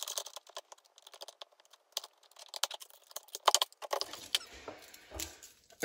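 Steel clutch plates, friction discs and a clutch drum from a Dodge 48RE/47RH automatic transmission clinking and rattling as they are handled on a workbench: a quick run of light metallic clicks that turns softer and lower in the last couple of seconds.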